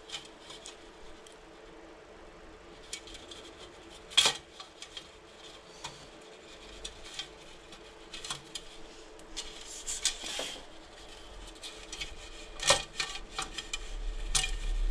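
Steel spokes clicking and clinking against each other and the hub as they are threaded through the hub flange during wheel lacing, with a couple of sharper metallic taps among the lighter ticks.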